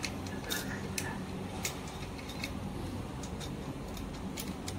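Scattered light clicks and taps of hands fitting an e-bike controller against a rear rack's metal mounting plate and turning its screws in, over a low steady hum.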